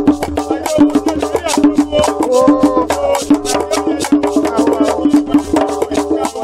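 Live West African percussion music: hand drums struck in a quick, dense rhythm with a beaded gourd shaker, and voices singing over them.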